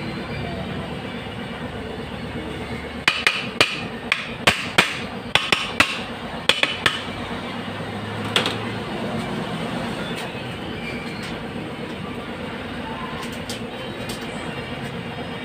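Hammer tapping on metal automatic-transmission parts during disassembly: a quick run of about a dozen sharp strikes a few seconds in, then one more, over a steady background hum.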